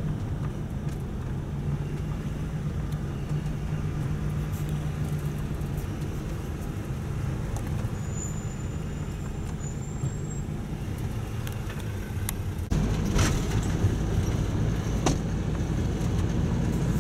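Engine and road noise heard inside a vehicle's cab as it drives slowly in traffic, a steady low hum. About two-thirds of the way through the noise suddenly steps up louder, and a couple of sharp clicks follow.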